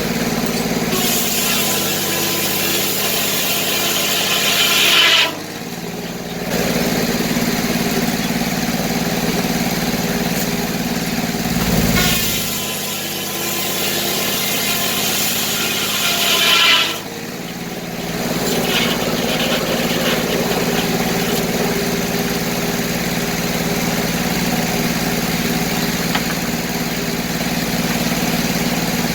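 Circular sawmill's engine running steadily while the 48-inch blade with new inserted-tooth bits saws through a log. There are two cuts of about four seconds each: a loud, hissing rip that builds and then stops sharply as the blade leaves the wood. A shorter, fainter cut follows.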